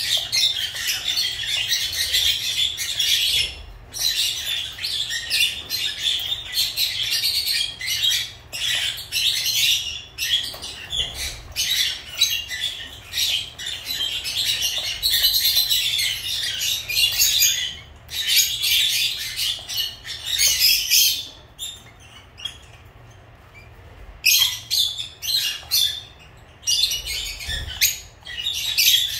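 Lovebirds chattering: dense runs of shrill chirps and squawks, with a brief quiet break about three-quarters of the way through.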